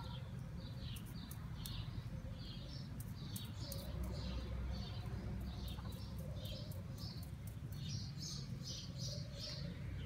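A small bird chirping over and over, short falling chirps about two to three a second, over a steady low rumble.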